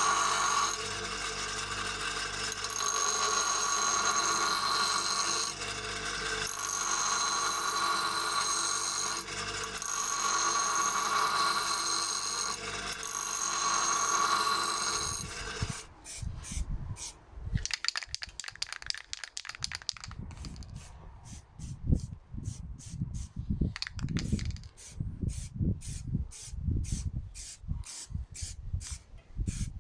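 Einhell bench grinder running with a high ringing whine, swelling each time a steel chain link is pressed against the wheel, about five times. About halfway through, the grinder gives way to short hisses of an aerosol spray-paint can, with wind gusts on the microphone.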